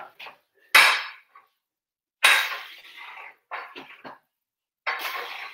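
Barbell weight plates clinking and rattling on the bar as it is lifted from the floor and curled. There are sharp clanks about a second in, near two seconds and again near the end, with lighter rattles between.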